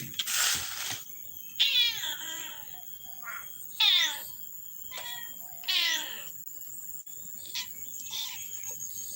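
An angry cat meowing in three loud, drawn-out calls about two seconds apart, each bending down in pitch, with a few weaker calls between and a short hissing burst about half a second in.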